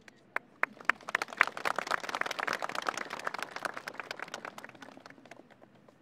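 Audience applause: a few scattered claps that quickly swell into dense clapping, then thin out and die away after about five seconds.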